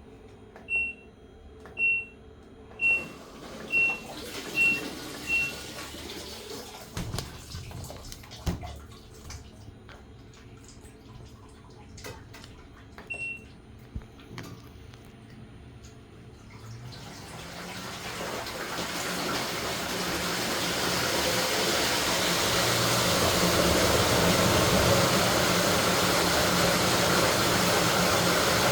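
LG top-load washing machine beeping six short times from its control panel as it is set, then once more, followed by water rushing into the tub, growing louder and then steady as the tub-clean cycle fills.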